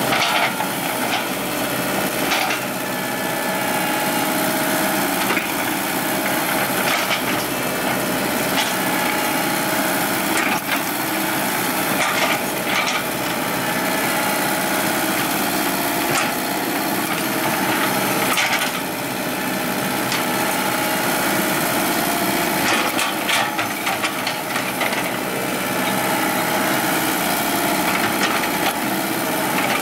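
Komatsu hydraulic excavator running steadily while it grades soil, with irregular scraping and cracking as the bucket drags through dirt and debris.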